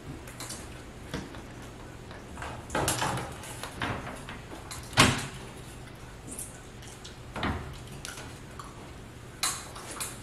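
Air filter being pushed into a ceiling return-air vent and the hinged vent grille swung shut and pressed into place: a handful of separate knocks and clicks, the loudest about five seconds in.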